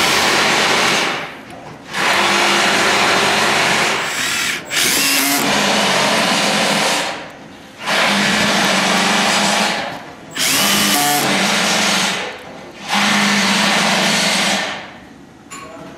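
Cordless drill driving locking screws through an aluminium end cap into the deck extrusions, one screw after another: six runs of the motor, each about two seconds long, with short pauses between.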